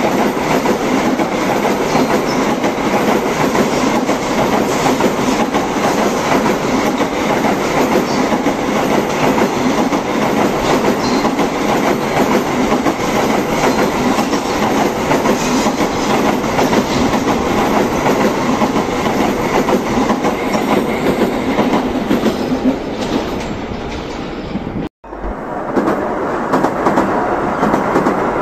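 Tokaido Shinkansen N700-series high-speed train running past at speed: a long, steady rush of wheel-on-rail noise with a rapid clatter. About 25 seconds in the sound cuts out abruptly for a moment, then resumes as two more Shinkansen trains pass each other.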